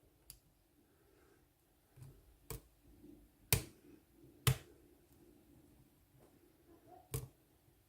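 Lock picking in a Ruko pin-tumbler cylinder: five or so sharp, light metal clicks spread out over several seconds as a short hook works the pins under tension, the loudest two about a second apart near the middle.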